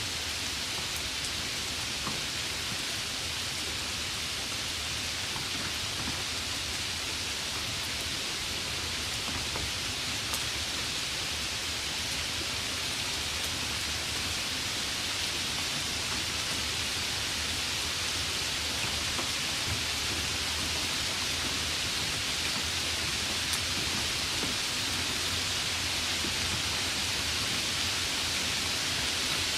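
Light rain falling: a steady even hiss with a few faint drop ticks.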